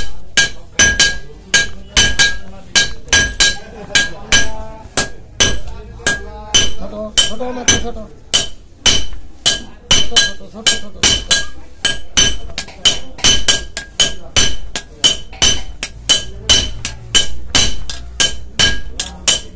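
Hand hammer striking a red-hot knife blank on a steel anvil in steady forging blows, about two a second, each blow ringing briefly.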